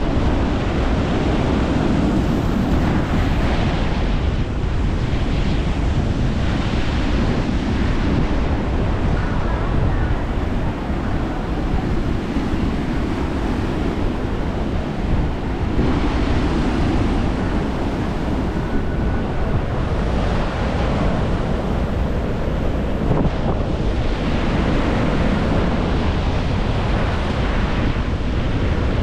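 Strong wind buffeting the microphone, with sea waves surging and breaking on the shore in slow swells every few seconds.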